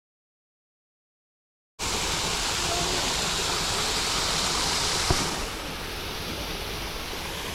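Silence, then the steady rush of a waterfall cutting in suddenly about two seconds in; it gets quieter and duller about five seconds in, with a single faint click.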